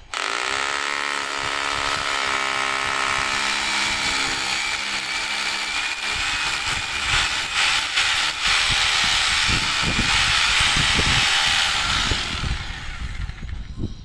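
Electric drill boring a mounting hole, starting abruptly with its motor pitch rising as it spins up, then running steadily with some low knocks and winding down near the end.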